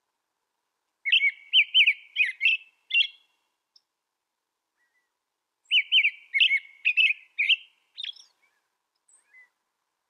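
American robin singing: two bouts of quick whistled phrases, the first about a second in and the second in the middle, each lasting about two and a half seconds, with a pause between.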